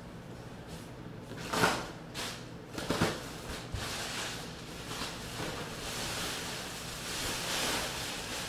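Plastic bubble-wrap packaging rustling and crinkling as it is pulled off a cabinet, with two sharp knocks about one and a half and three seconds in.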